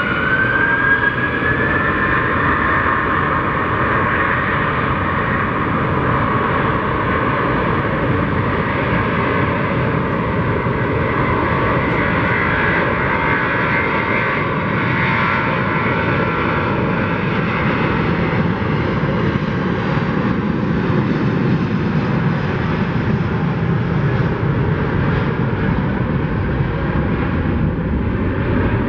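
Airbus A330-300's twin Pratt & Whitney PW4168A turbofans on the takeoff roll: a whine rising in pitch over the first couple of seconds as the engines spool up to takeoff thrust, then a steady loud roar as the jet accelerates down the runway.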